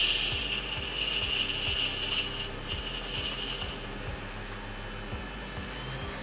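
Metal lathe cutting a brass part: the tool scrapes with a high, steady ringing tone that fades away after about three and a half seconds. The lathe then runs on more quietly as a twist drill is fed into the end of the brass.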